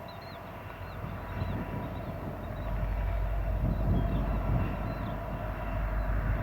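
Diesel freight train rumbling, growing louder about two and a half seconds in as it draws closer. Birds chirp repeatedly through it.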